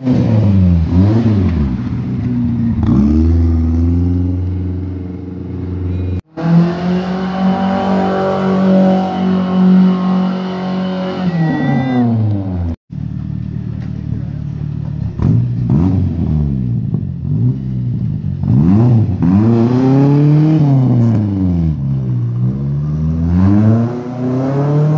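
1972 Toyota Corolla engine revving up and down over and over as the car slides sideways in drifts, broken by two brief gaps.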